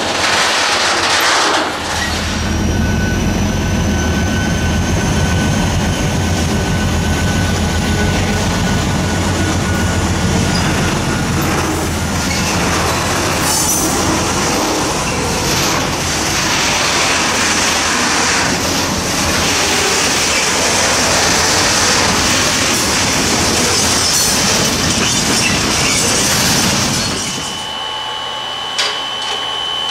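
Freight train of covered wagons rolling past. The diesel locomotives' engines hum steadily through the first part, followed by wheel rumble and a high wheel squeal that stops shortly before the end.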